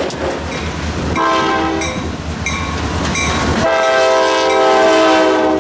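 Locomotive air horn of the lead EMD GP38-2, sounding a chord in two blasts: one starting about a second in, then a longer, louder one from just past the middle that runs on. Underneath is the rumble of the passing diesel train.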